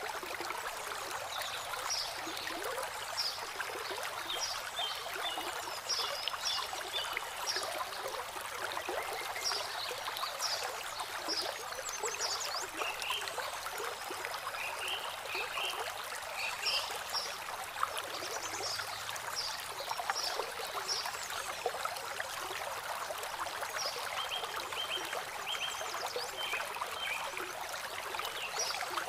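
Water from a man-made landscape stream feature trickling and splashing over rocks and pebbles, a steady rush. Short high chirps come and go above it.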